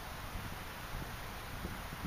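Steady outdoor background hiss with wind buffeting the microphone, and a few faint low thumps.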